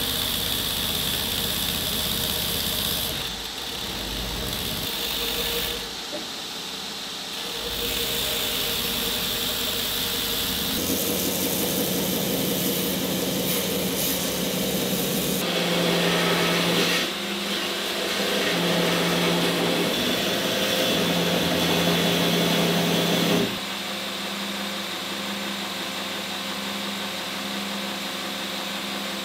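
Belt grinder running, with a steel axe head ground against the moving abrasive belt. The sound is continuous, and its level and tone change abruptly several times as the grinding passes change.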